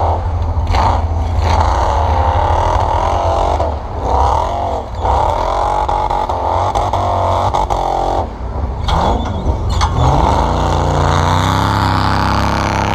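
Off-road vehicle engines revving, their pitch repeatedly rising and falling, over a steady low rumble. About ten seconds in, a deeper engine note rises as the lifted truck accelerates close by across the snow.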